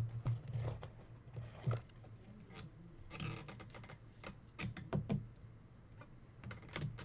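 Trading cards being handled: scattered light clicks and scrapes as cards are slid and flipped, with a short rustle about three seconds in.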